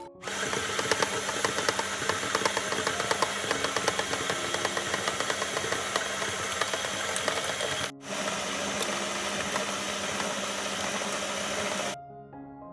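Electric stand mixer running at speed, its flat beater rattling and slapping through thick cream cheese filling. The sound breaks off for a moment about eight seconds in, then runs on. Soft piano music comes in near the end.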